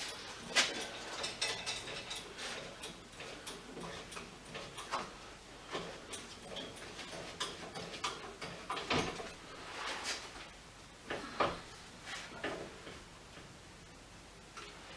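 Hydraulic strut spring compressor being worked by hand: a run of light metal clicks and clacks, a few a second, with several louder knocks partway through.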